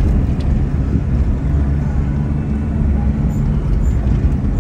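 Vehicle driving along a dirt road, heard from inside the cabin: a steady low rumble of engine and tyres.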